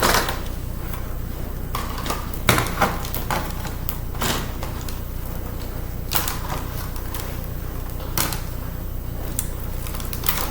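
Irregular metallic clicks and short scrapes of the thin aluminium cover of a laptop CD drive being pried off, about ten separate snaps spread unevenly, over a steady low hum.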